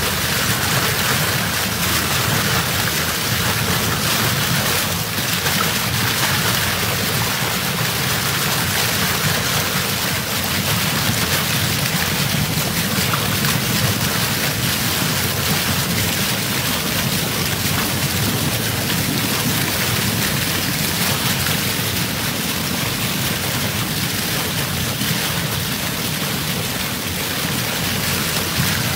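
Churned water rushing and splashing alongside a moving boat's hull: a steady, dense hiss of spray and foam.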